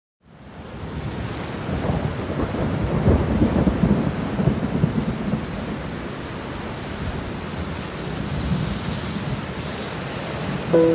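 Steady rain with low rumbling thunder, fading in from silence just after the start. The thunder is strongest a couple of seconds in and then eases into steady rainfall. Soft sustained music notes come in right at the end.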